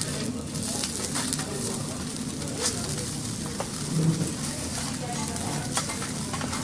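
Food sizzling on a hot teppanyaki griddle, a steady frying hiss with scattered short clicks.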